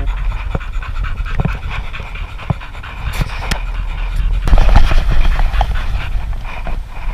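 American Staffordshire terrier panting right at the microphone, with scattered knocks and rustling from the camera strapped to its back.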